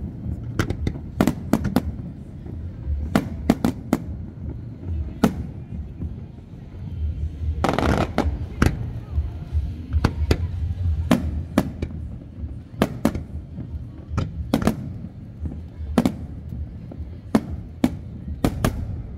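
Aerial firework shells bursting: a run of sharp bangs at uneven intervals, some in quick pairs, with a longer, noisier burst about eight seconds in and a low rumble underneath.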